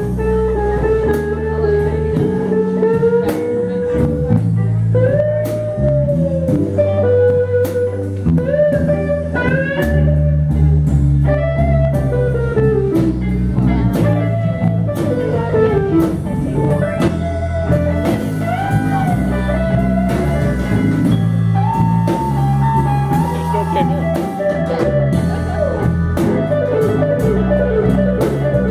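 Blues band playing: a lead guitar bending notes over bass and drums.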